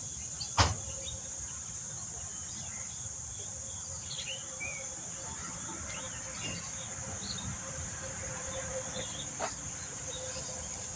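Steady high-pitched insect chorus, with scattered faint chirps and one sharp knock about half a second in.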